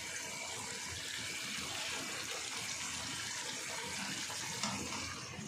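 Kofta curry simmering in a karahi over a gas burner: a steady hiss of bubbling gravy.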